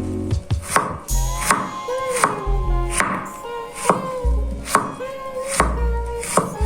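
Knife chopping on a cutting board in slow, fairly even strokes, about one every second, over background music.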